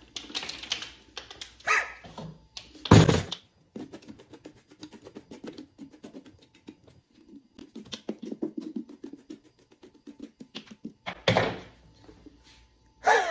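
A pumpkin held upside down and knocked on a table to empty its loosened pulp and seeds: one solid thunk about three seconds in, then a run of soft patters and scrapes as the guts fall and are worked loose. Short yelping, bark-like calls come once near the start and twice near the end.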